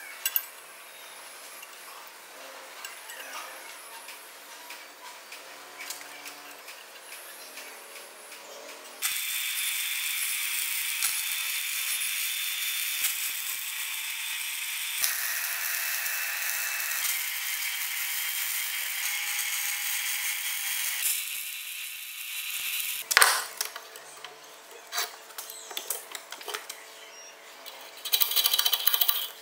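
Electric arc welding on a steel C-channel and threaded rod: a loud steady hiss that runs for about twelve seconds from roughly nine seconds in. Before it come faint metal clinks of the parts being fitted, and a single sharp metal knock follows a couple of seconds after the weld stops.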